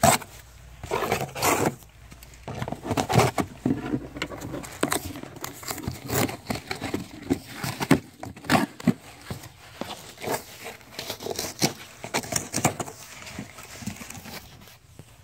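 A cardboard shipping box being torn and pried open by hand: irregular ripping, scraping and knocking of cardboard.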